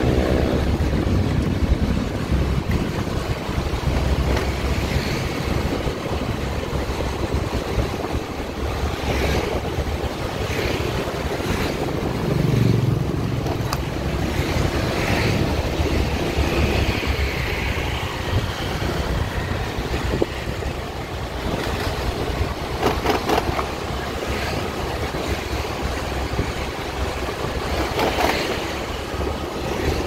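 Steady engine rumble of a moving vehicle with wind noise on the microphone, and a few louder moments as other traffic goes by.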